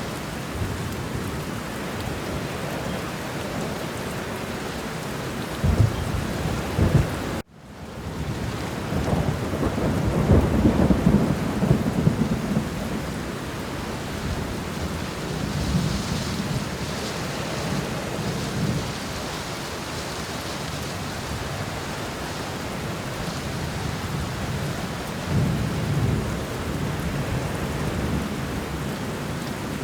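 Steady heavy rain with several low rolls of thunder swelling and fading, the longest about ten seconds in. About seven seconds in, the sound cuts out for an instant and fades back up.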